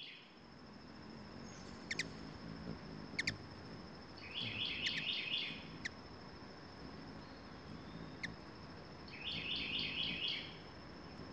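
Wild birds calling in woodland. One bird sings a rapid phrase of repeated notes about four seconds in and again near the end, and single sharp chip calls come between the phrases. A steady high tone runs underneath.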